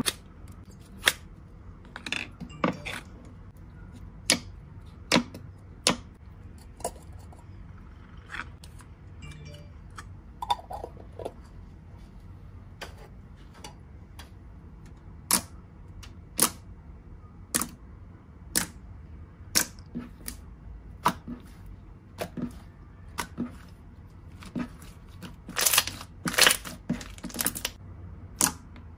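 Wood-glue slime being worked by hand, giving sharp popping clicks about once a second, with a denser run of louder pops near the end.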